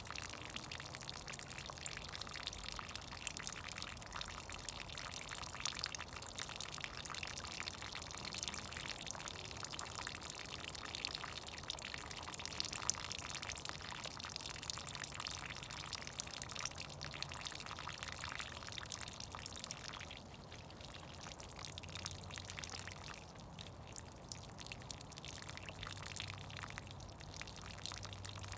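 Melting snow dripping and trickling: a dense, continuous patter of many small water drops, easing slightly about two-thirds of the way through.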